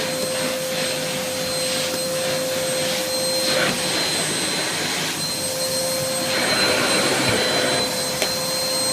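Hoover Vortex 850 W vacuum cleaner running loud and steady with a high whine over its rushing suction, its hard-floor nozzle being pushed over carpet. The low part of the hum drops back for a second or so mid-way, then returns.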